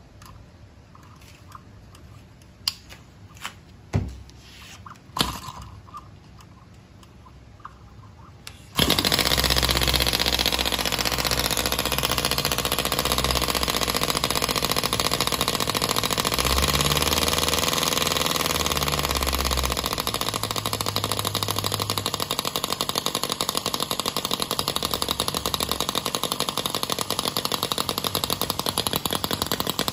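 Miniature Knucklehead V-twin model engine: a few sharp clicks as it is handled, then about nine seconds in it fires suddenly and keeps running with a loud, rapid firing rattle.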